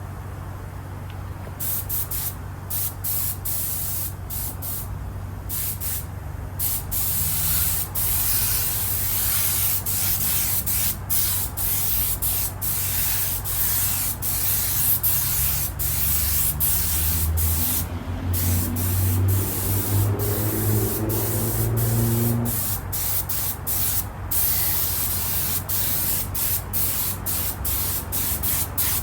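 Leather colourant being sprayed onto a car seat: a loud hiss in repeated bursts with brief breaks between them, over a steady low hum.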